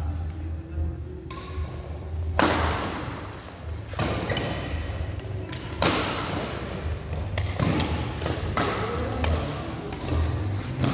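Badminton rally: rackets smack the shuttlecock back and forth about every second or two, each hit echoing in a large hall, with shoe thuds on the court.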